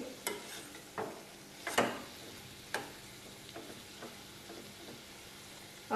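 Metal spatula stirring vegetables, masala and drumstick pieces in a nonstick kadhai: four short scrapes about a second apart in the first three seconds, then a few faint ticks, over a soft sizzle of the cooking masala.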